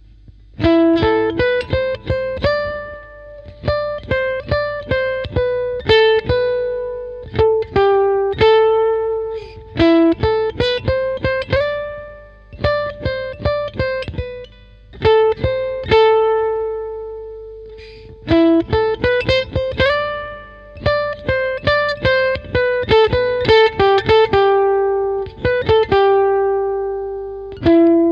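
Background music: a solo guitar playing a riff of single plucked notes. Short phrases repeat, some ending on a held note that rings out.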